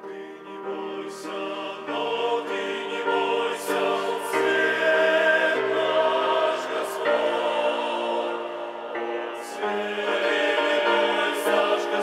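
Men's choir singing a hymn in harmony, holding chords that change every second or two, quieter at first and fuller from about two seconds in.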